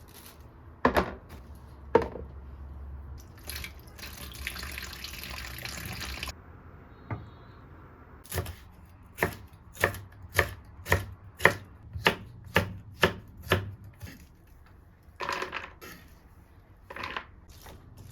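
Knife chopping on a cutting board: a few single cuts, then a steady run of about a dozen even strokes, roughly two a second.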